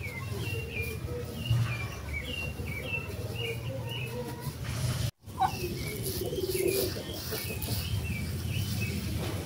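Small birds chirping, with many short, repeated notes, over a steady low hum. The sound cuts out for an instant about halfway through.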